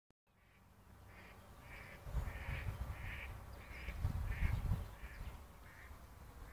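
A bird giving a long series of harsh caws, about one every 0.6 seconds, over low rumbling that swells twice, around two and four seconds in.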